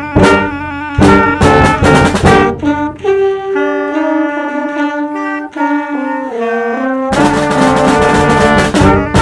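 Concert band music from one player multitracked on brass, woodwinds, snare drum and bass drum. It opens with loud accented chords punched by drum hits, drops about two and a half seconds in to a softer passage of held wind chords with no drums, and the full band with drums comes back in loud near the end.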